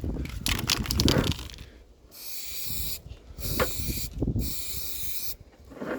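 Aerosol spray-paint can hissing in three short bursts, starting about two seconds in, as a tag is sprayed. Before the bursts there is a low rumbling noise.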